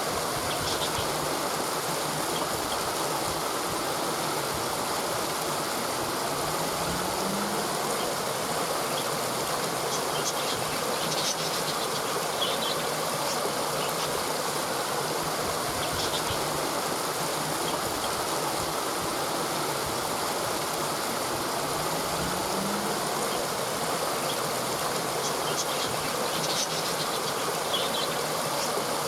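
Steady rush of falling water from a waterfall, with faint short high chirps twice over it.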